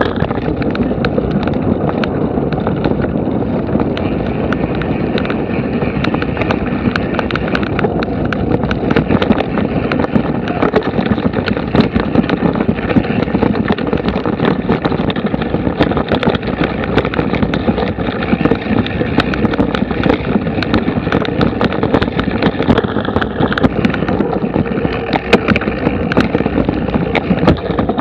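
Mountain bike descending a rough forest dirt trail, heard from the rider's camera: a continuous rumble of knobby tyres over dirt, roots and leaf litter, with constant rattling and knocking as the bike jolts over the ground.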